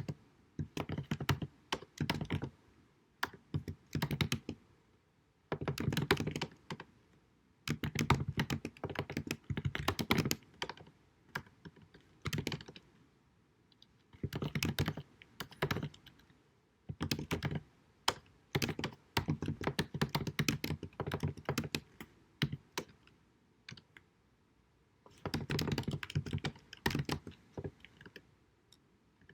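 Typing on a computer keyboard in runs of rapid key clicks, broken by short pauses every few seconds.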